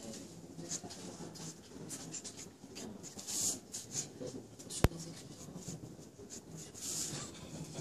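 Marker pen drawing on a card: a series of short, scratchy strokes of the felt tip rubbing across the surface. A single sharp click about five seconds in.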